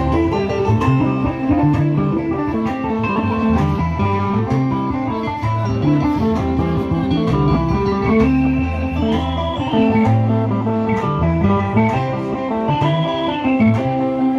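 Live band music: an electric krar, an electric guitar and a bass guitar play an instrumental passage over a steady beat.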